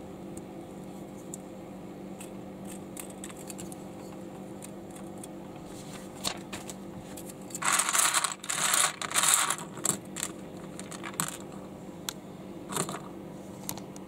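Loose plastic LEGO bricks clattering as a hand rummages through a pile of them, loudest for about two seconds in the middle, with scattered clicks of bricks being picked up and pressed together. A steady low hum runs underneath.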